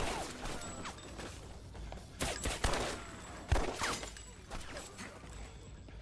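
Movie gunfire in a shootout: a shot right at the start, then a quick run of shots between about two and four seconds in, each echoing, with bullets striking and debris scattering off a drink cooler.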